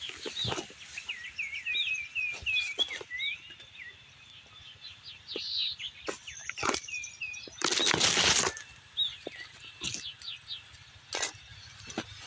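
A small songbird singing a rapid run of warbling, swooping notes, with scattered clicks and knocks around it. About eight seconds in comes a loud burst of noise lasting about a second, louder than the song.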